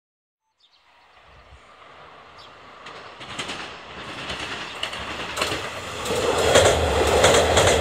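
Two-car KiHa 185 series diesel railcar approaching, fading in from silence about a second in and growing steadily louder as it nears. The engine and wheel noise is broken by sharp clicks of the wheels over rail joints.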